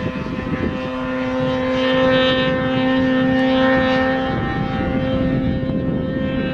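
Snowmobile engine running at high, steady revs, holding a near-constant pitch, growing a little louder about two seconds in.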